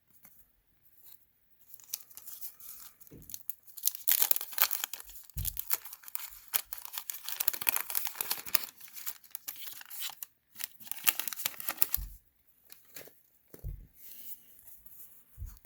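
Wax-paper wrapper of a 1987 Garbage Pail Kids sticker pack being torn open and crinkled, a crackly tearing that is loudest from about four to nine seconds in, with a few soft thumps.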